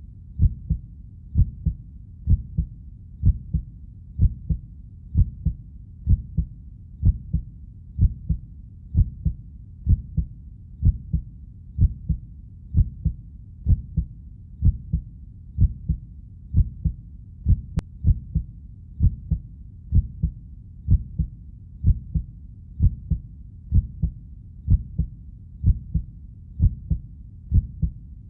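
Heartbeat: a steady lub-dub double thump, low and dull, repeating evenly about once a second.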